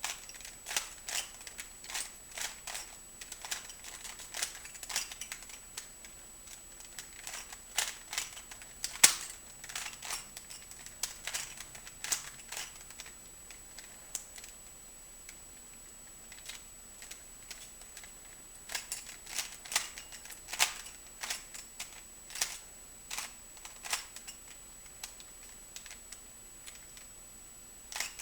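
Rubik's cube being twisted by hand: quick, irregular plastic clicks and clacks as the layers turn, coming in bursts and going mostly quiet for a few seconds midway.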